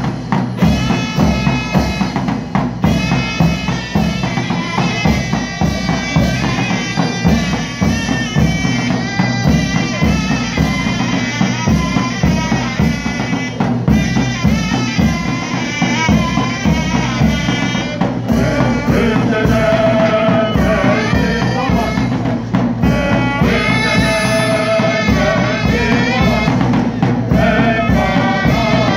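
Ottoman mehter military band playing a march live: a steady, marching beat on big drums under zurnas and brass horns carrying the melody. About eighteen seconds in, voices join, singing over the band.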